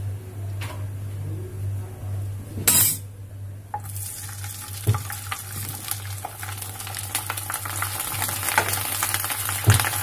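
Sabudana (sago) papads deep-frying in hot oil in a kadhai. A sharp hiss about three seconds in gives way to dense sizzling and crackling as they puff up, with a few knocks of a slotted metal spoon against the pan, over a steady low hum.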